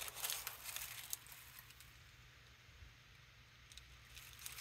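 Thin printing tissue rustling and crinkling faintly as it is handled. The rustling comes in the first second and again near the end, with near quiet in between.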